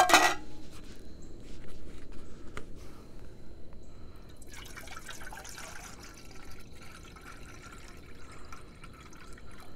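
Water being poured into a metal camping cookpot, filling it to a little under a half gallon, after a sharp knock at the very start.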